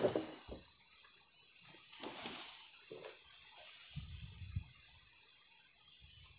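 Sawn wooden boards being handled and stacked: a knock of wood on wood at the start, a scraping slide about two seconds in, and a couple of dull thumps about four seconds in.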